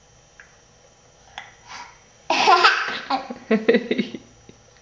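A burst of laughter starting about two seconds in, a run of short pitched bursts lasting nearly two seconds; before it, only a few faint clicks.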